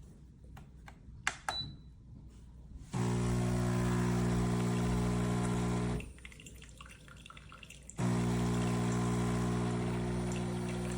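Espresso machine's vibratory pump buzzing steadily for about three seconds, stopping for two, then starting again, with liquid pouring. A few sharp clicks come about a second in, before the pump starts.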